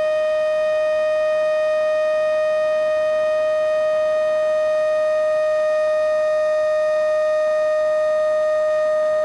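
Remote-control plane's motor running at one steady, unchanging pitch: a constant high whine.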